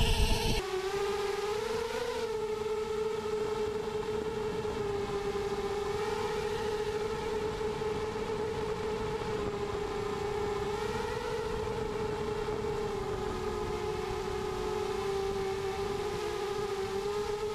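Brushless motors and propellers of a Spanky Mini 250 quadcopter whining steadily in flight, heard from its onboard camera; the pitch wavers slightly as the throttle changes. It begins with a brief loud rush that lasts about half a second.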